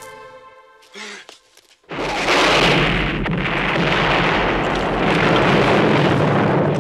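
Electronic intro music fades out. About two seconds in, a film soundtrack's rocket explosion goes off suddenly and carries on as a long, loud rush of blast and debris noise.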